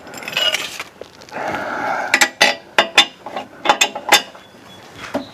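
Hand tools working on metal bolts: soft scraping at first, then a run of sharp metal clicks and clinks.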